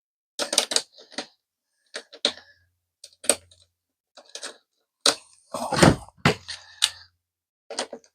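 Irregular clicks, knocks and rattles of tools and small hardware being handled during hand work on wiring, in clusters, busiest in the second half. A faint low hum comes and goes underneath.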